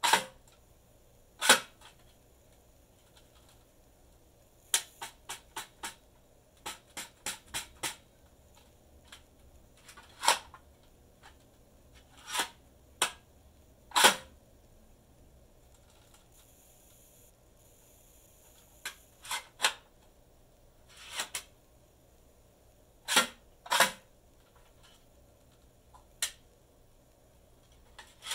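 Spring-loaded aluminium shield gauntlets snapping out and locking, and clicking back into place when pushed in: sharp metallic clicks and clacks of the sliding steel-rail mechanism, some single and loud, some in quick runs of four or five.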